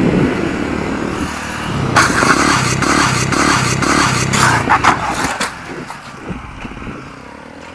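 A motorcycle engine running hard during a wheelie, then, about two seconds in, the crash of the failed wheelie: the bike goes down and clatters and scrapes on the asphalt for about three seconds with sharp knocks, then dies away.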